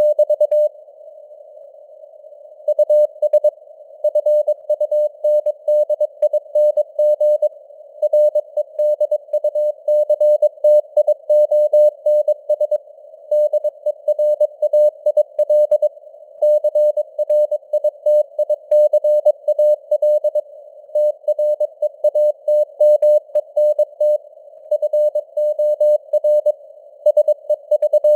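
Morse code sent at 22 words per minute as a single keyed tone of about 600 Hz, dots and dashes running in quick groups with a pause of about two seconds near the start. A hiss of simulated radio band noise sits around the tone, and the signal strength slowly fades up and down (QSB).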